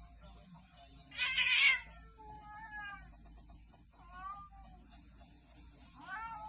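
Domestic cat yowling defensively, with a loud hiss about a second in followed by three short, falling yowls.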